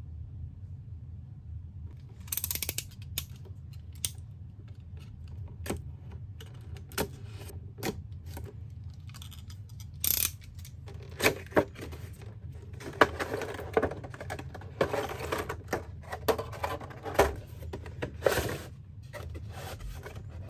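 Cardboard and plastic toy packaging being opened and handled: sharp taps and clicks as the box flap is opened, then rustling, scraping cardboard as the printed insert and clear plastic tray are slid out, busier in the second half, over a steady low hum.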